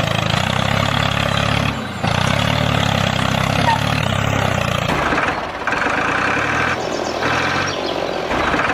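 A DIY mini tractor's small engine running steadily. About halfway through, a higher-pitched whine joins in, coming and going in short spells.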